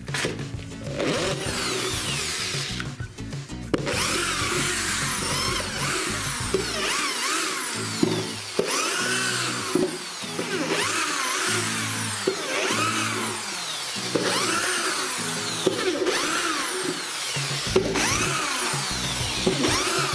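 Parkside PSBM 500 C4 hammer drill boring a series of holes into a wooden board, the motor running up and dropping back with each hole. Background music plays underneath.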